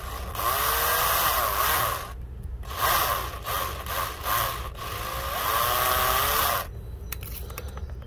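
Matrix cordless drill-driver driving a screw through a metal doorbell bracket into wood, in two long runs with a short pause between. Its motor pitch sags and recovers as the screw bites, and it stops a little after two-thirds of the way through.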